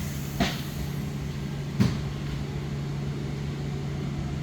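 Plastic welding machine running during a weld cycle with a steady low hum, with two short clicks about half a second and just under two seconds in.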